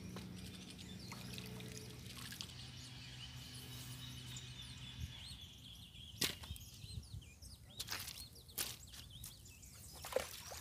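Tilapia being landed: water splashing and dripping as the fish comes out of the pond, then several sharp slaps from about six seconds in as the flapping fish is handled.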